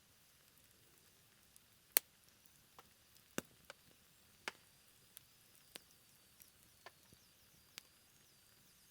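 A low campfire burning down to embers, crackling with scattered sharp pops at irregular intervals over a faint hiss; the loudest pop comes about two seconds in. A faint thin high whistle wavers through the middle.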